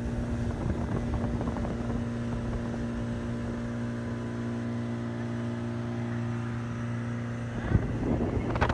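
Motorboat engine running steadily under way, a low even hum. A burst of rushing noise rises over it near the end.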